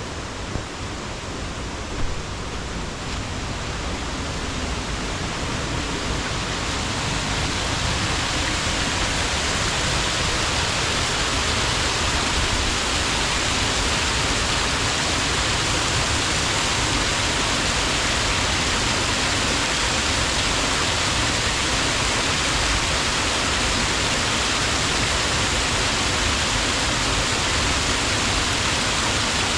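Waterfall's steady rushing roar, rising over the first several seconds and then holding steady.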